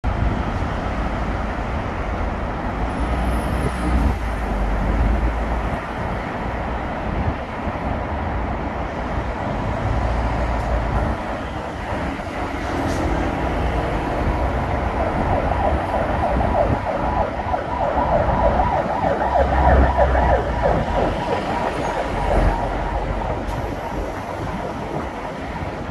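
Busy street traffic with a Hyundai city bus pulling in to the stop, its engine and tyres getting louder in the second half as it draws up.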